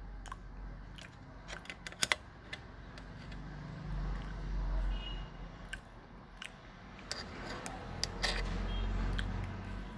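Steel spoon clinking and scraping against a stainless steel plate while scooping up fried rice, the loudest a pair of sharp clinks about two seconds in, with chewing between scoops.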